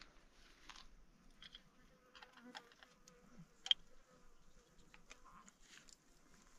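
Faint buzzing of a flying insect, with scattered light ticks and one sharper click a little past halfway.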